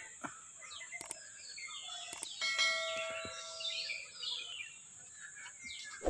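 Birds chirping over a steady high-pitched insect drone, like crickets. About two and a half seconds in, a few clicks and a bell-like chime from a subscribe-button sound effect ring out for over a second.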